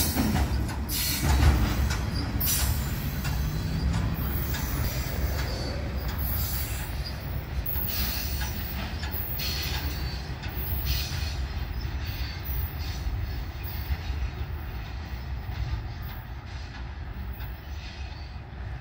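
The tail of a freight train of open hopper cars passes and rolls away, its wheel rumble and clatter fading steadily as it recedes.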